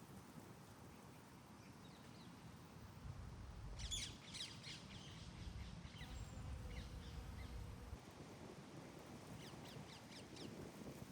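Faint bird calls: a quick cluster of chirps about four seconds in and another near the end, over a low rumble in the middle.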